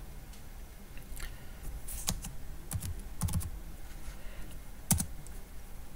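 Computer keyboard typing: a few scattered, irregular keystrokes, with one sharper key click about five seconds in.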